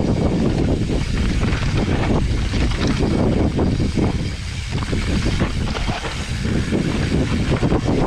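Wind rushing over the microphone of a mountain bike descending a rough downhill trail, with frequent knocks and rattles from the bike over the ground.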